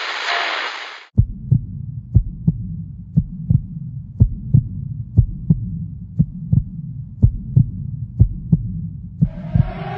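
A heartbeat sound effect: paired low thumps, lub-dub, about once a second over a low hum, starting after a hissing noise cuts off about a second in. Near the end a rising siren-like wail begins to fade in.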